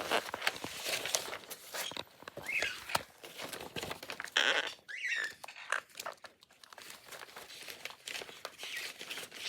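Quaker parrot picking and tearing at paper with its beak: scattered clicks and rustles, with a few short chirps about two and a half and four and a half seconds in.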